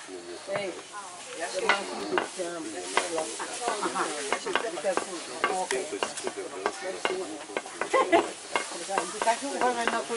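Captive flying foxes (large fruit bats) chattering: a dense, continuous run of short squeaks, chirps and clicks.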